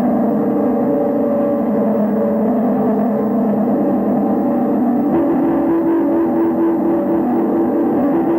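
Improvised noise music: a dense, unbroken drone of held tones, with a new higher tone taking over about five seconds in.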